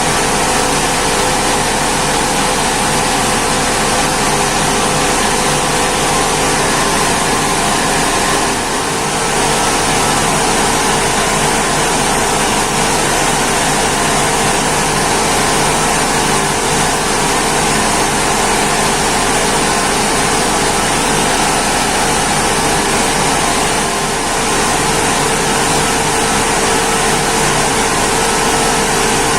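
Rice mill machinery running steadily: a loud, continuous mechanical noise with a steady hum, dipping slightly twice.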